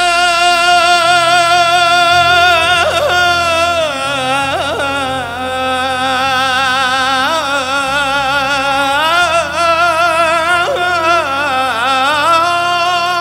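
A male solo voice sings an Arabic song in long, drawn-out melismatic lines with a wide, wavering vibrato, with brief gliding turns between held notes. Under the voice there is steady, sustained low band accompaniment.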